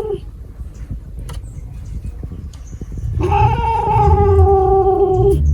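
A cat yowling: one long, steady, drawn-out call that begins about three seconds in and lasts about two seconds, with the end of an earlier call just at the start.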